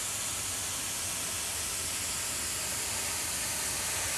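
Badger airbrush hissing steadily as compressed air sprays paint onto model railroad track.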